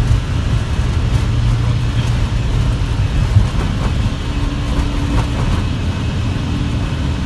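Airbus A320 on its takeoff roll, heard from inside the cockpit: a steady, loud low rumble from the engines at takeoff thrust and the wheels on the runway, with a few faint thumps. The rumble eases about halfway through, and a steady hum comes in.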